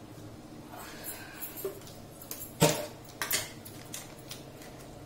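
Metal cookware clinking and knocking: a metal pan or utensil on the stove, with one sharp clank about halfway through, another knock shortly after and a few light taps.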